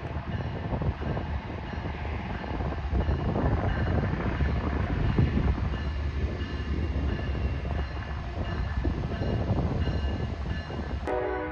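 A train passing close by: a steady rumble of wheels on rail with scattered knocks. Near the end its horn begins to sound.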